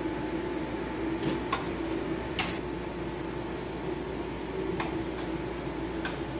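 A steady low hum with a handful of short, sharp clicks as the mixing console's controls and jack cable are handled.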